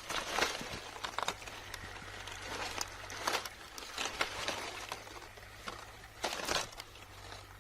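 Irregular rustling and crinkling with scattered small clicks and crackles, loudest near the start, about three seconds in and again near the end.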